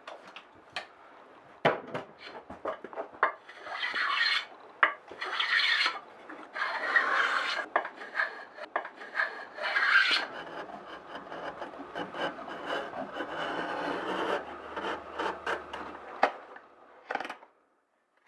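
A hand blade paring and scraping a hardwood key (batten) for an icon board: a run of rasping strokes, the longest in the middle, with small clicks and knocks between them.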